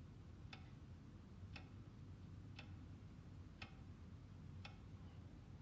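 Brass bedside clock ticking faintly and evenly, about once a second, over a low steady room hum.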